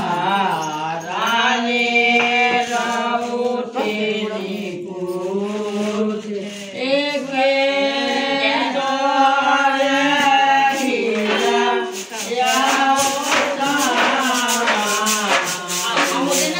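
A group of women singing a devotional folk song to the goddess together, with long held, sliding notes. Past the middle, quick sharp taps and rattles join the singing as the winnowing baskets are worked.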